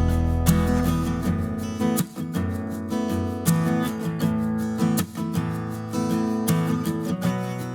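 Background music with acoustic guitar plucking and strumming.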